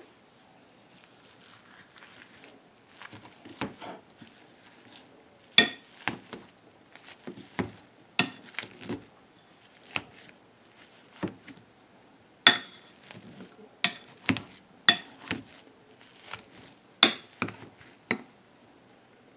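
Metal wire potato masher mashing boiled potatoes in a glass bowl, its head knocking against the glass in sharp clinks, roughly once a second and unevenly spaced, with softer squashing between them.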